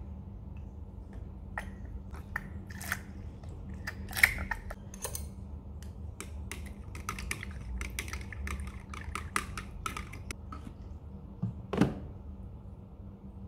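Metal stirring rod clicking and rattling against the inside of a large plastic water bottle as fertilizer is stirred into the water: a quick, irregular run of small ticks. Near the end comes one louder knock as a plastic fertilizer jug is set down on a cabinet shelf.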